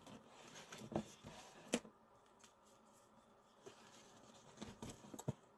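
Quiet room tone with a few faint handling noises: soft clicks and taps, the sharpest about two seconds in.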